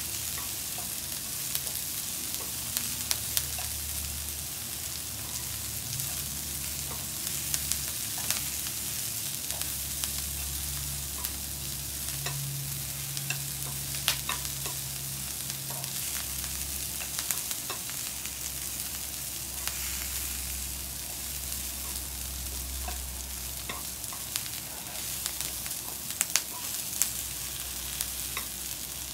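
Curly kale sizzling in a nonstick frying pan as it is stirred and tossed with chopsticks. Many short, light clicks of the chopsticks against the pan sound over a steady hiss.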